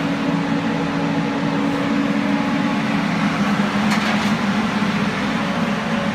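UBS-2200 drilling rig's machinery running steadily, a constant low hum with one held tone. A faint short click comes about four seconds in.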